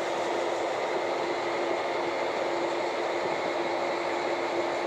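Four-wheel-drive tractor running steadily under load pulling a grain cart, heard from inside its cab: an even engine and drivetrain noise with a constant hum.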